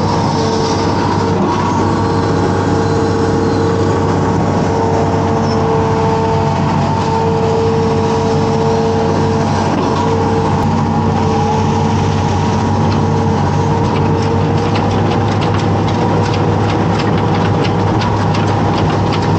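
Hitachi amphibious excavator's diesel engine running steadily under working load, with steady whining tones over the low engine hum, as the boom and bucket dig in the water.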